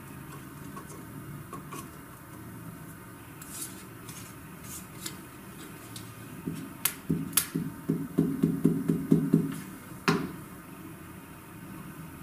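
A glue stick rubbed quickly back and forth over a paper cut-out on a table, about six strokes a second, with a few sharp plastic clicks before it and one after.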